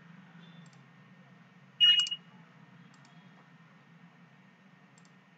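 Computer mouse clicking faintly a few times over a low steady hum, with one short, louder sound about two seconds in that carries a high beep-like tone.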